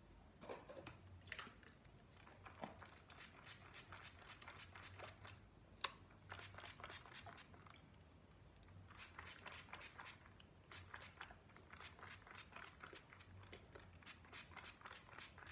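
Faint crackly rustling of fingers working through braided hair, coming in clusters of quick small ticks, with one sharper click about six seconds in.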